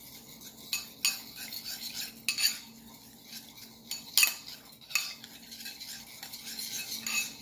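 Metal spoon stirring a thin soy-sauce mixture in a ceramic bowl: soft scraping with irregular sharp clinks of spoon against bowl, the loudest about four seconds in.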